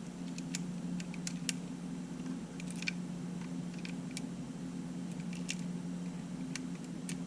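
Scattered small, sharp clicks and taps of small camera parts and tools being handled during a repair, over a steady low hum.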